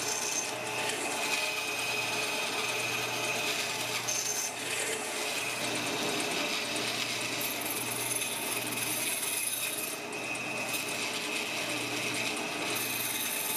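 Craftsman 10-inch band saw running steadily as its blade cuts through a wine cork pushed on a crosscut sled, with a faint even rise and fall about once a second.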